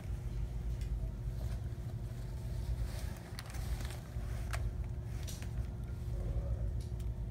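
Steady low background rumble with a faint steady hum, broken by a few light clicks and rustles as clothes on hangers are handled at a rack.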